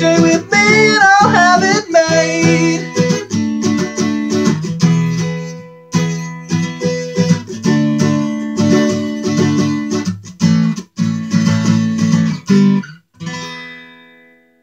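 Acoustic guitar strummed through the song's closing riff, with a short wordless sung phrase over the first few seconds. It ends on a final chord left to ring and fade out.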